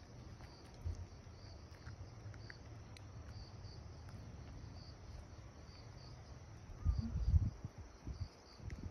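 Faint insect chirping, a short high pulse repeating about once a second, with a brief low rumble about seven seconds in.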